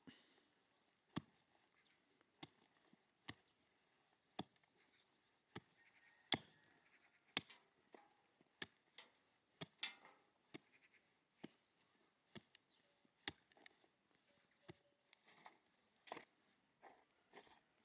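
A series of short, sharp knocks or taps, irregularly spaced at roughly one a second, some louder than others.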